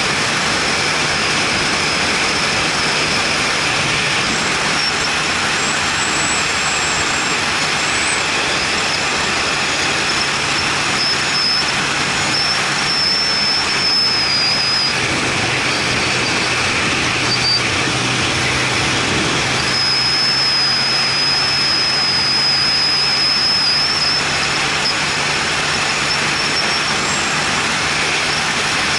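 Steady wind and road noise from a vehicle driving at speed on an open road, picked up by a camera mounted outside on the vehicle, with a low engine hum underneath that settles slightly lower about halfway through. A thin high whistle comes and goes twice.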